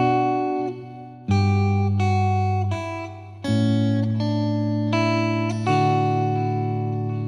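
Slow, calm instrumental guitar music: a new plucked note or chord about every two seconds, each left to ring and slowly fade.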